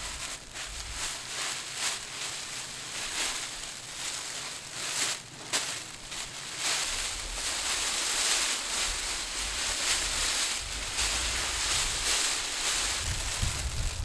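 A tarp and a foil survival blanket being handled and spread out, rustling and crinkling. Scattered sharp rustles at first, then denser, continuous crinkling from about halfway on.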